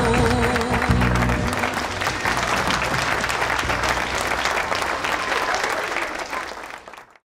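Audience applauding, with the last music of the song dying away over the first second or two. The applause fades out just before the end.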